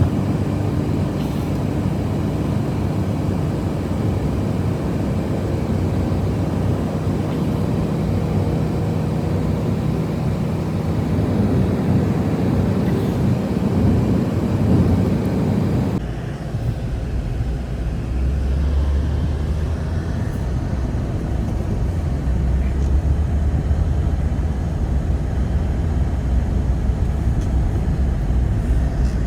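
Strong blizzard wind, a steady deep rushing. About sixteen seconds in it cuts abruptly to a deeper, lower rumble.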